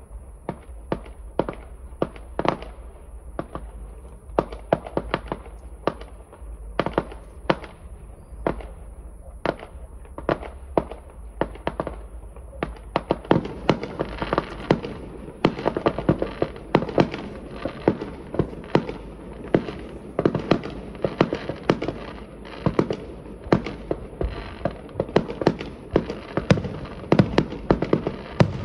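Fireworks display: a rapid series of sharp bangs from bursting shells, several a second, growing denser and busier about halfway through.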